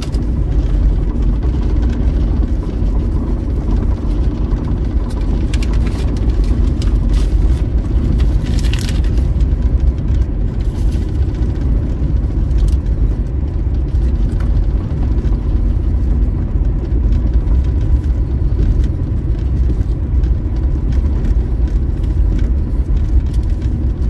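Car cabin noise while driving on a highway: a steady low rumble of engine and tyres on the road, with a few light clicks near the middle.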